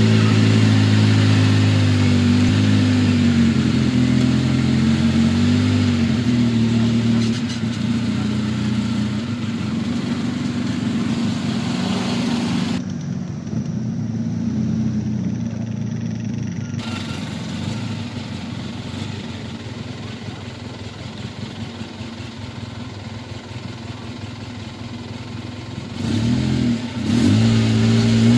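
ATV engine running and being throttled on and off, its pitch rising and falling with the throttle. Louder at first, quieter and rougher through the middle, then revving up sharply near the end.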